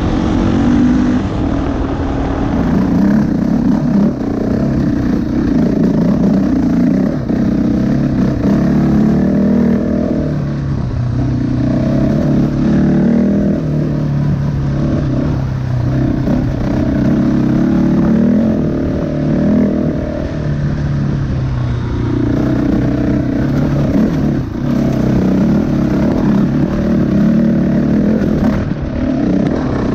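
Husqvarna 701 Enduro's single-cylinder four-stroke engine running under way off-road, its revs rising and falling again and again as the throttle is opened and closed.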